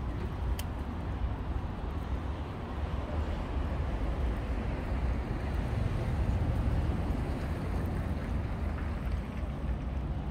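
Steady low outdoor rumble with a fainter hiss above it, with no single event standing out.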